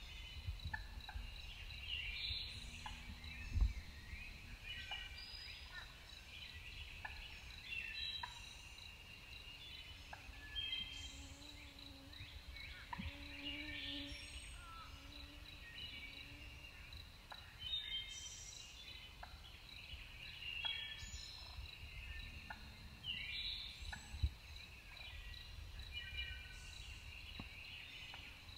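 Evening woodland sounds: many short bird calls scattered throughout, over a steady high-pitched pulsing trill.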